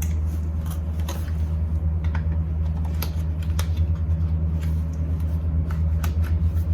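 A steady low hum, with scattered small clicks and taps of cosmetic packaging being handled.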